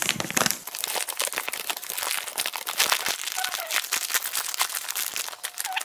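Kraft paper packaging of a cat grass growing kit being handled and opened: dense, rapid crinkling and rustling of stiff paper, fast-forwarded.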